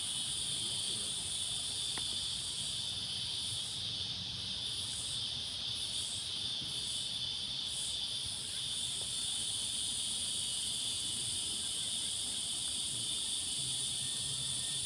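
Insects droning in a steady, shrill, high-pitched chorus that does not let up.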